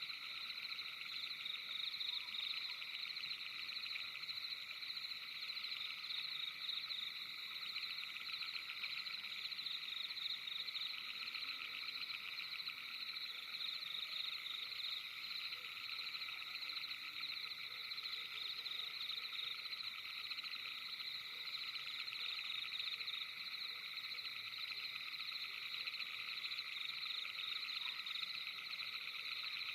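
Dense nocturnal chorus of calling animals, frog-like to the tagger: a steady, fast-pulsing trill in several high pitches that runs on without a break.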